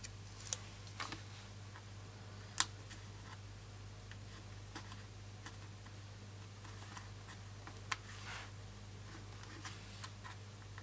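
Sticker and paper handling at a planner: a few sparse soft clicks and taps as small stickers are peeled and pressed onto the page, the sharpest about two and a half seconds in, over a low steady hum.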